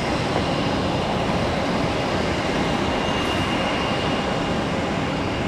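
Steady rushing rumble of airliner jet engines at the runway, with a faint high whine coming in about three seconds in, and wind buffeting the microphone.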